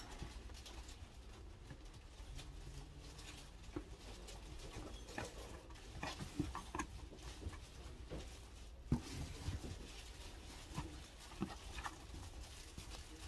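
Hands working flower stems and foliage into a flower garland on a cardboard-covered table: irregular rustling with light taps and clicks, the sharpest about nine seconds in, over a low steady hum.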